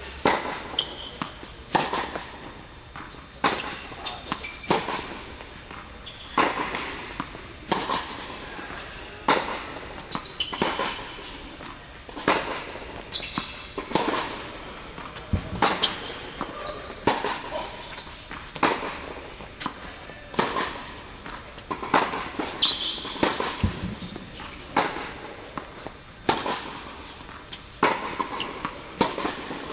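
Tennis rally: a ball struck hard with racquets, about every second and a half, with the ball's bounces on the hard court between strokes.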